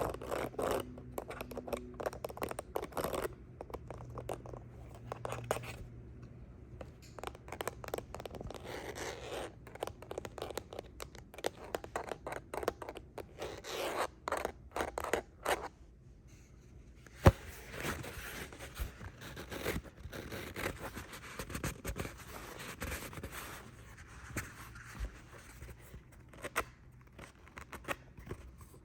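Fingernails scratching and tapping quickly and irregularly on hard handheld objects close to the microphone, with one sharp, louder tap about seventeen seconds in.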